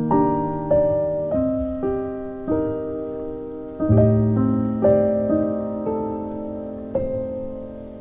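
Background piano music: a slow, gentle melody of notes and chords, each struck and left to ring and fade.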